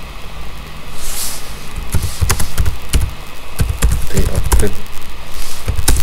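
Computer keyboard keystrokes: a quick run of typed keys from about two seconds in, with a firmer press near the end as the command is entered.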